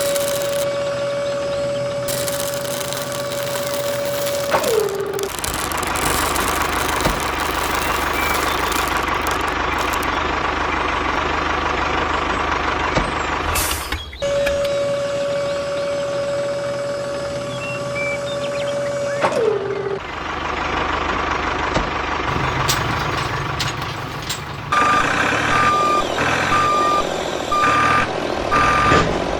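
Miniature model construction vehicles at work. A small motor whines at a steady pitch, then winds down with a falling pitch, twice, with a steady rattling noise in between. Near the end comes a run of reversing beeps, about one a second.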